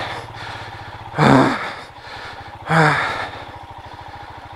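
Two loud, heavy gasping breaths from the rider with effort, about a second in and again near three seconds, over the Royal Enfield Himalayan's single-cylinder engine running underneath with an even pulse.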